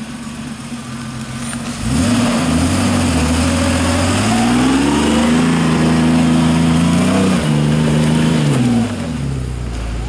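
Isuzu Trooper's engine pulling the truck up a dirt trail. The engine note rises about two seconds in, climbs higher around four seconds, holds, then falls back near the end.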